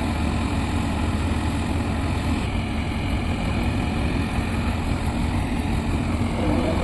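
Heavy diesel engine of construction machinery running steadily, a continuous low drone with no change in pace.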